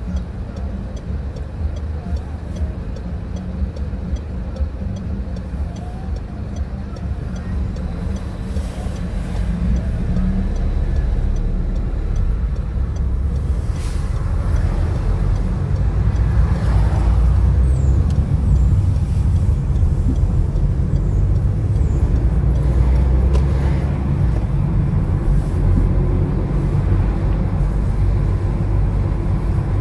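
Car engine and road rumble heard from inside the car: a low, steady running sound that grows louder about a third of the way in as the car pulls away and drives on.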